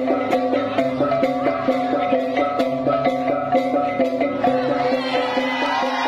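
Balinese baleganjur gamelan playing a fast, steady beat: clashing cengceng hand cymbals over repeating gong-chime notes. Near the end the players start shouting together over the music.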